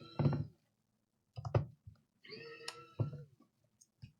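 Knocks and taps of hands and tools on the analyser's casing as it is taken apart, with two drawn-out squeaky tones between them.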